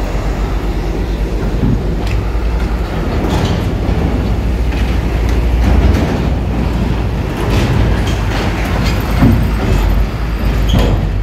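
Hino cargo truck driving up a ferry's steel loading ramp: a low diesel engine rumble with repeated clanks and rattles as the wheels roll over the ramp plates.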